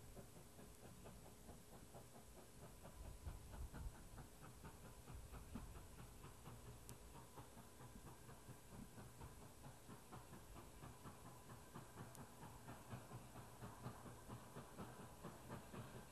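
Steam locomotive working toward the listener, its exhaust chuffing faintly in a quick, even beat that grows clearer near the end.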